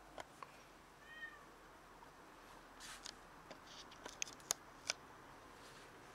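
Stray cat with a freshly caught rat: one short, faint meow about a second in, then sharp clicks as it bites into the rat, the three loudest close together just past the middle.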